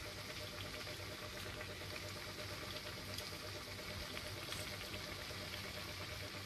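Unniyappam batter balls deep-frying in hot oil over a medium flame: a low, steady sizzle with small scattered crackles.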